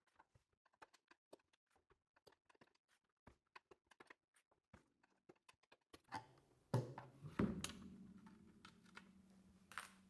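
Faint, scattered clicks of metal spring clamps being prised off the seam of a plastic steam cylinder with a slotted screwdriver. About six seconds in, a few louder clicks and knocks come over a faint low hum.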